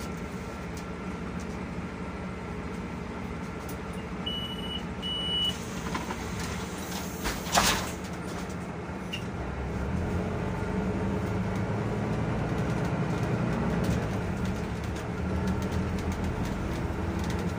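Solaris Urbino 12 IV city bus at a stop: two short high warning beeps as the doors are closed, then a short, loud hiss of compressed air. The engine then takes load and the bus pulls away, its running noise growing louder.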